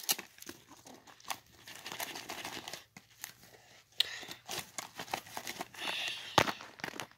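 A handheld radio being worked out of its pouch on a vest: fabric rustling and scratching with rasping, tearing-like strokes as the pouch is opened, and a sharp click near the end.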